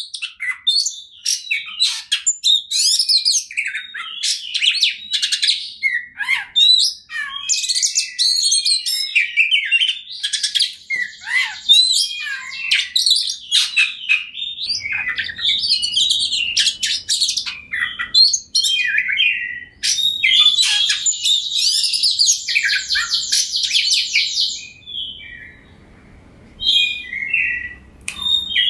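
Oriental magpie-robin singing continuously: rapid, varied whistled and chattering phrases, with a long fast rattling trill about twenty seconds in and a brief pause near the end.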